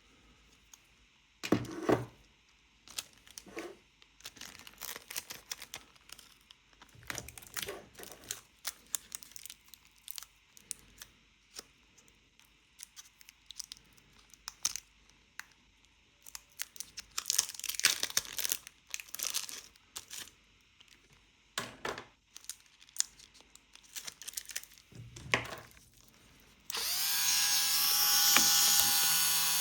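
Irregular scraping and scratching on the metal bayonet mount of a Nikkor lens as the black paint is cleaned off the chip's seat. About 27 s in, a small electric rotary tool starts and runs steadily with a high whine.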